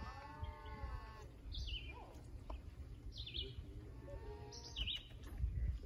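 Goat bleating: a long wavering call at the start and shorter calls about two and four seconds in. A songbird repeats a short high falling note every second or two, with wind rumbling on the microphone.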